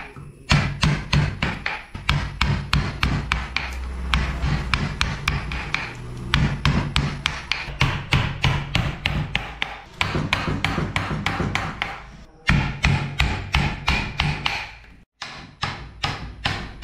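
A mallet striking a carving chisel into a wooden block: a steady, rapid run of sharp knocks at about three or four blows a second, breaking off briefly twice near the end.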